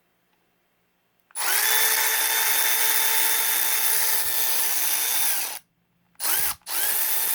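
Milwaukee M12 Fuel 3/8-inch cordless ratchet running with no load: the motor spins up quickly and runs steadily for about four seconds, then stops. After a short blip it starts again and keeps running to the end.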